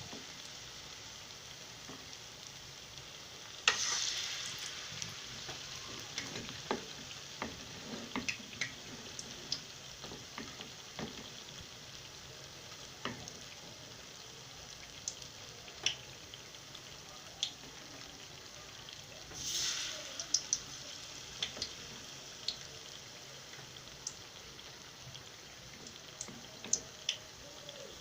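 Batter-coated boiled potatoes deep-frying in hot oil: a steady sizzle with scattered sharp pops and crackles, swelling into two louder bursts of sizzling about 4 seconds in and again around 20 seconds in.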